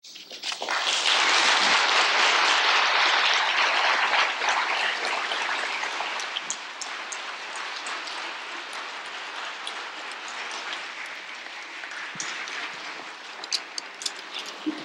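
Audience applauding a lecture, swelling to full strength within about a second and then slowly thinning out, with a few scattered claps near the end.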